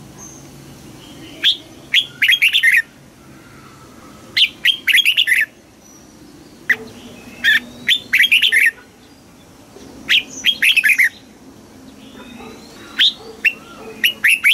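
Red-whiskered bulbul singing: short, rapid phrases of bright, quickly sliding notes, about five bursts separated by pauses of a second or two.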